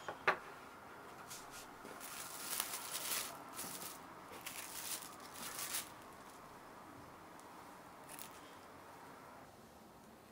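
Plastic cling film crinkling and rustling as it is peeled back off a wire cooling rack, in irregular bursts for a few seconds, with another short rustle near the end. A couple of sharp clicks come right at the start.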